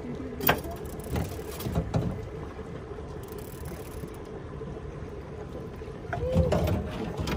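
Boat motor running steadily at slow trolling speed, with several knocks and clunks on the boat, the sharpest about half a second in and a louder cluster near the end.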